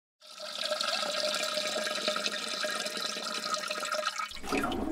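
Water rushing through plumbing: a steady hiss with a few constant whistling tones over it, starting suddenly just after the start, with a low hum joining about four seconds in.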